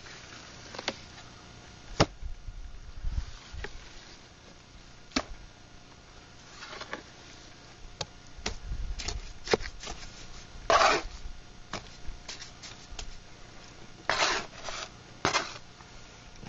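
Mason's trowel scraping and tapping as mortar is worked onto a mortar board: scattered sharp clicks and taps, with a few short scrapes about eleven and fourteen seconds in.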